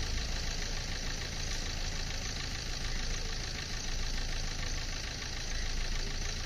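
A vehicle's engine idling steadily, a low even hum that does not change.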